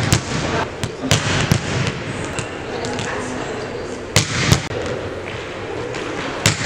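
Volleyball attack drill on a hardwood gym floor: sharp smacks of a volleyball being spiked and slapping the floor, ringing in the gym, over a steady murmur of voices. The two loudest smacks come about four seconds in, half a second apart, with a few lighter ball contacts before and after.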